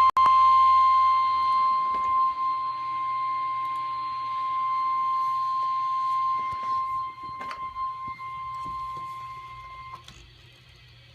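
Emergency Alert System warning tone for a severe thunderstorm warning: a single steady tone just above 1 kHz, held for about ten seconds and cutting off near the end. A single tone at this pitch is the 1050 Hz warning alarm used by NOAA Weather Radio.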